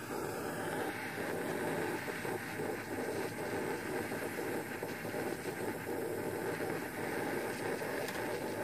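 Soldering torch with a coned flame burning steadily on an orthodontic appliance, a constant rushing noise as silver solder is flowed into a joint.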